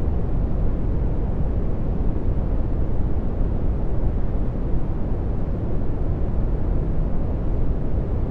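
Dark brown noise: a steady, deep rushing noise, strongest in the bass, with little high hiss and no change in level.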